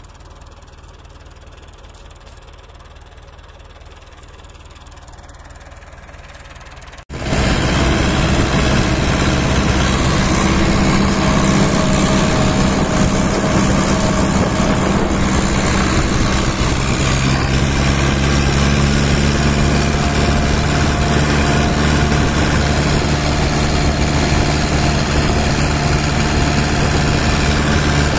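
Massey Ferguson tractor's diesel engine running with a steady low drone. It is quieter at first, then loud and close from about seven seconds in.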